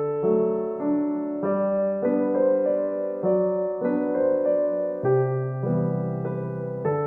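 Background music: a soft electric piano melody, notes struck and held over chords, changing every half second or so.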